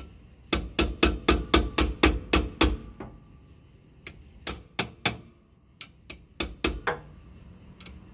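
Sacrificial mallet striking the metal steering yoke of a Kodiak jet pump to coax it loose on its shaft. A quick run of about nine blows at roughly four a second comes first, then after a pause several more scattered blows.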